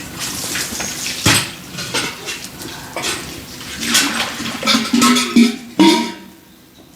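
Hard objects knocking and clattering as they are handled, with a denser scraping, rubbing stretch about two-thirds of the way through.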